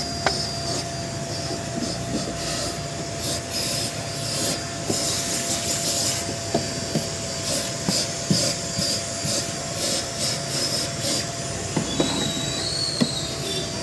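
Vacuum cleaner running with a steady whine as its hose nozzle sucks at a car's floor and seat pocket; the rushing suction noise rises and falls as the nozzle moves, with scattered small clicks and taps.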